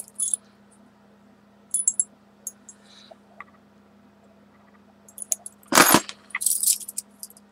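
Small old metal keys clinking and jangling as they are handled, with scattered light clicks, then a loud thump just before six seconds in followed by a burst of jangling.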